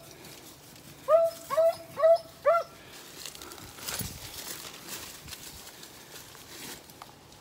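Beagle barking on a rabbit's track: four quick barks about a second in, each sliding up and then holding. Rustling and crackling through dry leaves and brush follow.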